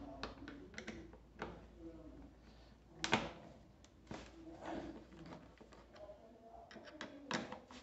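Phillips screwdriver turning a screw out of a motorcycle's plastic dashboard panel: faint scattered clicks and ticks of the tool and plastic, with a few sharper clicks.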